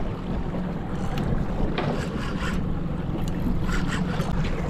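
Yamaha 200 outboard motor running steadily in gear, with water rushing past the hull and wind buffeting the microphone.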